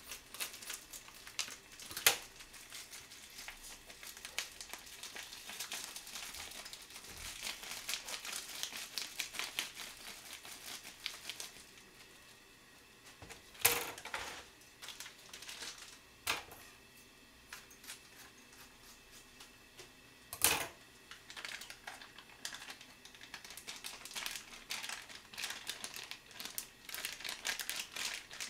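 Plastic food packaging crinkling and rustling as bags are handled, cut open with scissors and emptied. There is a continuous run of small crackles, broken by three sharp knocks.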